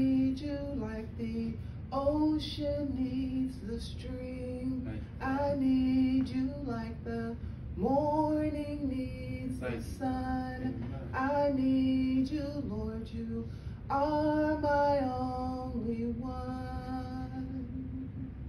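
A woman singing a worship song into a microphone, in long drawn-out phrases with held notes, a new phrase starting every two to three seconds.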